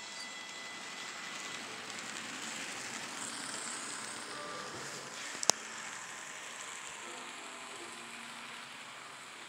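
N scale model trains running on the layout track: a steady rushing whir of small wheels and motors, with one sharp click about five and a half seconds in.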